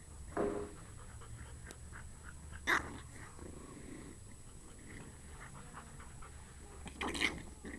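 English bulldog puppies playing and making dog noises, with three short sharp sounds: one about half a second in, the loudest near three seconds in, and one near the end.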